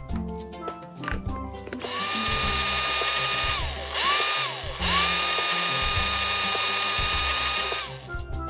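Electric blender motor pulsed three times, puréeing fresh mango into a sauce. It spins up to a steady whine about two seconds in, cuts out briefly, gives a short burst, then runs steadily again until it winds down near the end.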